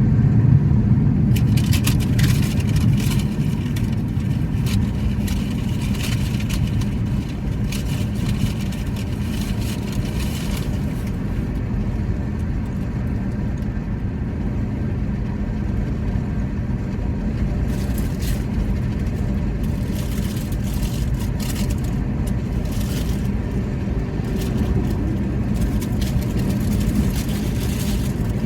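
A steady low rumble throughout, with stretches of crackly clicking noise from about a second in to about ten seconds, and again over the last ten seconds.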